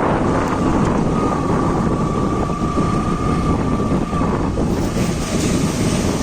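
Motorbike running on a beach ride, with heavy wind rumbling on the microphone. A thin steady whine sits over it from about half a second in until about four and a half seconds.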